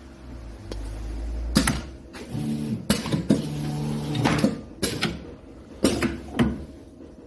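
Labeling machine for square bottles running: a motor hum and then a steady pitched motor tone, with a series of sharp clacks from the mechanism.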